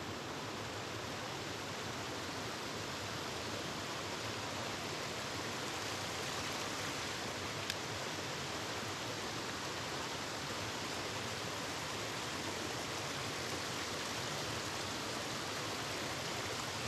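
Steady rush of a small river's water running over rocks.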